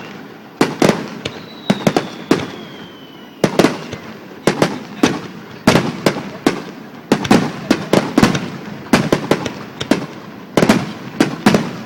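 Fireworks going off in a rapid, irregular string of sharp bangs, each with a short echo. A thin whistle falls in pitch for about two seconds, starting a little over a second in.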